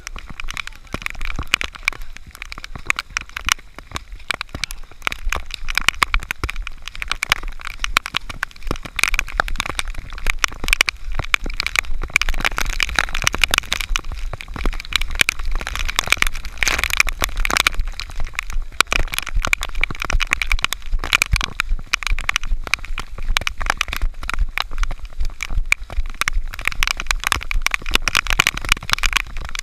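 Heavy rain pelting an action camera's housing: a dense, continuous crackle of raindrop hits over a low rumble.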